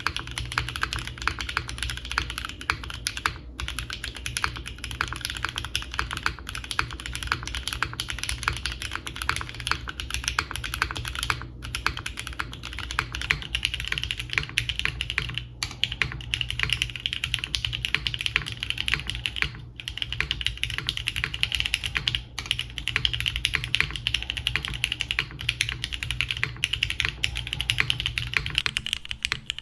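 Fast, continuous typing on a Geonworks Frog TKL mechanical keyboard fitted with Cherry MX Hyperglide Black linear switches, lubed on the stem only to keep their scratchiness, under GMK Tiramisu keycaps on an aluminium plate. The typing stops briefly a handful of times, over a steady low hum.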